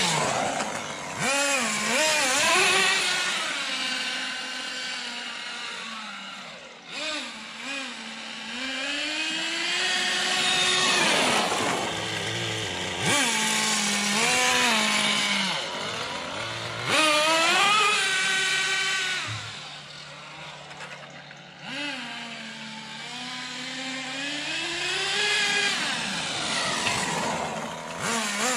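Small two-stroke nitro engine (Thunder Tiger Pro-18BXS) of a 1/10 RC monster truck being driven, its high buzzing note rising and falling over and over as the throttle is opened and closed. It is loudest in several short spells as the truck passes close.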